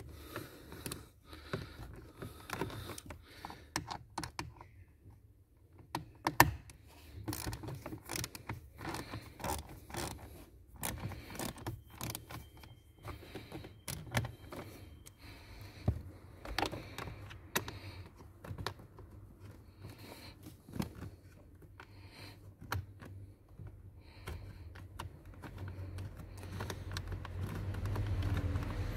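Irregular light clicks and scrapes of a small ratchet and Torx bit working a screw loose, mixed with hands handling hard plastic.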